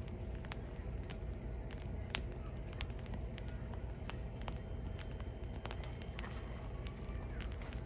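Firewood burning: irregular sharp crackles and pops over a low steady rumble, one pop louder than the rest about two seconds in.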